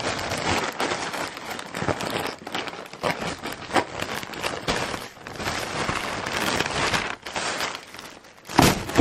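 Plastic shipping bag being crinkled and torn open by hand: a steady dense crackling, with a sharper, louder burst near the end.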